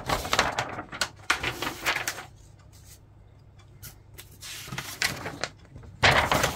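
A large paper marking-guide sheet being handled and its pages turned: rustling for about two seconds, then quieter with a few brief rustles, and a louder rustle near the end.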